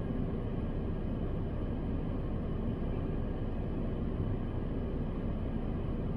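Steady low rumble inside a car's cabin, the car's engine running while it sits parked.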